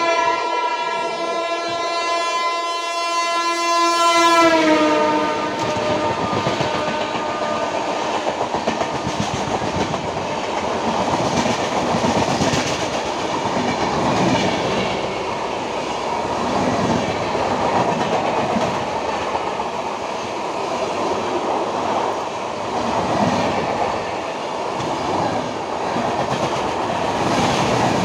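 An oncoming express train's locomotive horn sounds in one long blast that drops in pitch as it passes and stops about four seconds in. A loud, continuous rush and rattle of the express coaches clattering past on the adjacent track follows.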